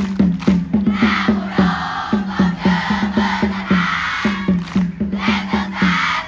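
A large cheering section of students singing and chanting a cheer song together over rapid, steady drumbeats.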